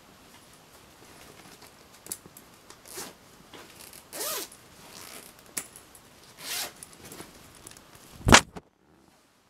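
A zip pulled in a few short rasping strokes over light handling rustle, then one sharp knock about eight seconds in, after which it goes quiet.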